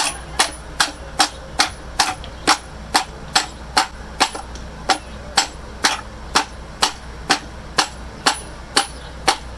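Hammer blows on metal at an even pace, a little over two a second, each with a short bright ring. They are driving iron hardware onto a cracked wooden cannon mount to close the crack.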